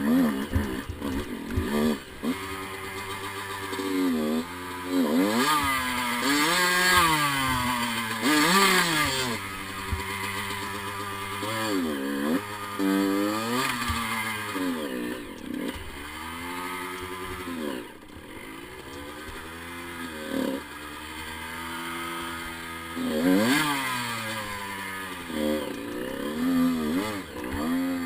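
Dirt bike engine revving up and down over and over, its pitch rising and falling every second or two as it climbs over rocks, with a few sharp knocks near the start.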